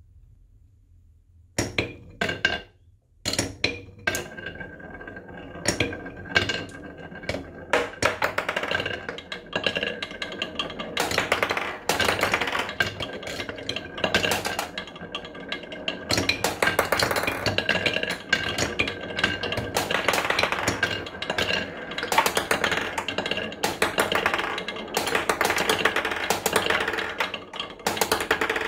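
Marbles rolling and clacking down carved wooden marble-run tracks with serpentine and wavy grooves: a few separate clicks at first, building about eight seconds in into a dense, continuous rattle of balls knocking against the wood and each other.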